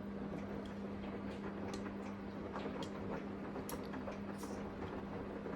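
Samsung washing machine running mid-cycle: a steady hum holding one tone, with scattered light ticks and clicks.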